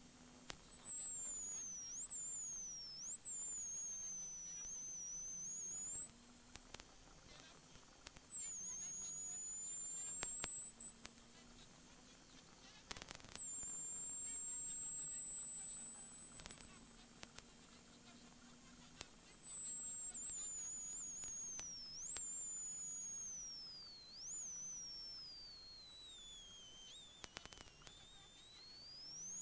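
Peugeot 106 XSI rally car heard from inside the cabin at full speed: a high whine climbs with the engine revs and drops sharply at each gear change, over a faint engine note. A few knocks come through from the road. Near the end the whine falls away as the car slows for a corner.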